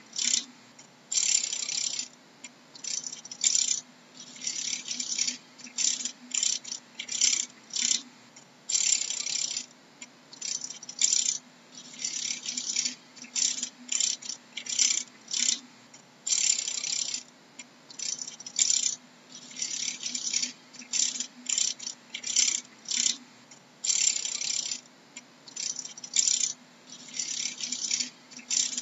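Dragonfly making dry, rasping rattles in irregular bursts, some brief and some about a second long, one or two a second, over a faint steady low hum.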